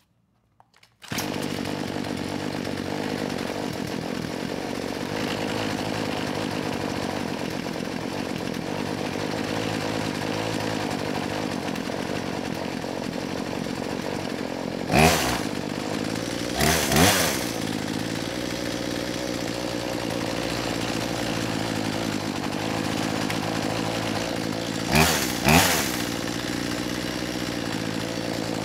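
Poulan Pro PP4218AVX 42cc two-stroke chainsaw engine idling steadily from about a second in, with five short throttle revs, three about halfway through and two near the end. The owner suspects a clogged carburetor, since turning the low-speed needle made little difference to how the engine sounded.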